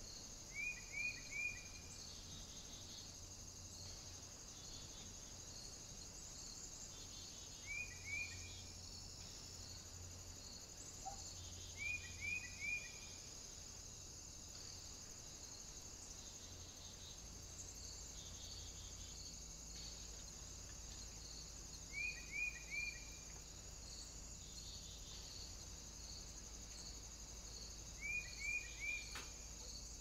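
Insects chirring steadily at a high pitch, with a bird call of three quick falling notes heard five times, a few seconds apart.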